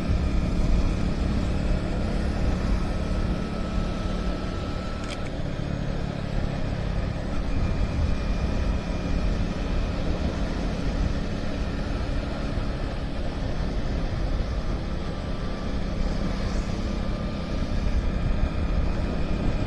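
Motorcycle engine running steadily while riding, with wind and road rumble on the microphone.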